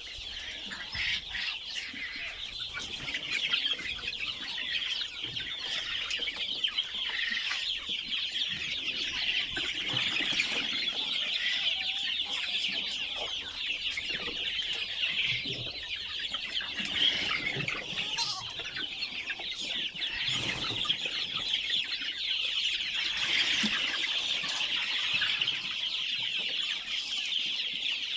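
A large flock of chickens calling continuously, many birds clucking at once in a dense, steady chatter.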